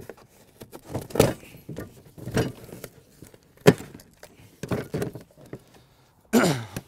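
Handling noise as a battery lawn mower's handlebars are unclipped and lifted out of a wooden packing crate: a series of knocks and rattles, with a sharp click a little before four seconds in. Near the end comes a short sound that falls steeply in pitch.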